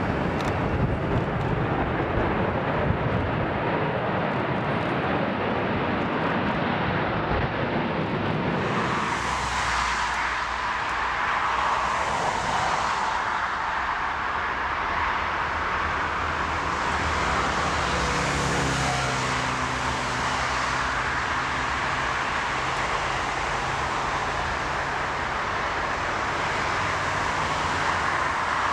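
Airbus A380's four jet engines rumbling as it rolls along the runway, with wind buffeting the microphone. About nine seconds in, the sound switches to an ATR twin-turboprop on a wet runway: a steady engine-and-propeller hiss, with a low droning hum joining about two-thirds through.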